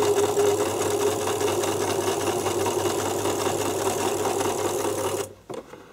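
Electric household sewing machine stitching through thick faux-fur fabric, running steadily at speed, then stopping about five seconds in.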